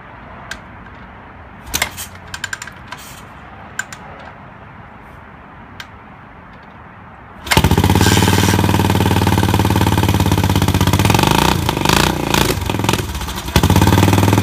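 A few clicks and clunks, then a 1980 Yamaha XT500's air-cooled single-cylinder four-stroke engine catches about halfway through and runs at a fast idle. It stumbles and dips for a couple of seconds near the end, then picks up again: running a bit rough, with the choke still on after the winter lay-up.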